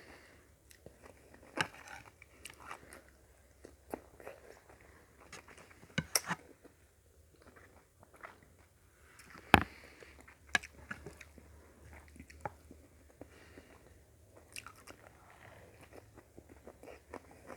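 Close-up eating sounds: chewing and biting a mouthful of rice and sautéed vegetables, with scattered sharp clicks of a utensil against a plate, the loudest about nine and a half seconds in.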